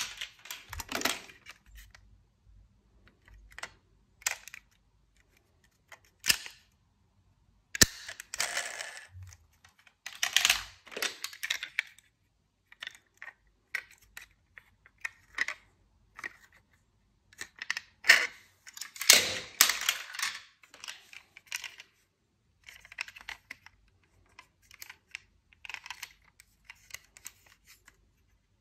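Die-cast toy cars clicking and clattering as they are handled and set down, in irregular sharp clicks and short rattles with silent gaps between.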